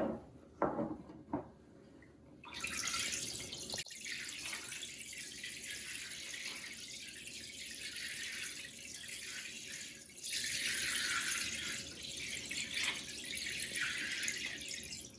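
Water poured from a watering can into a pan, a steady splashing trickle that starts about two and a half seconds in after a few light knocks, and swells louder about ten seconds in. It serves as the foley sound of a flowing stream.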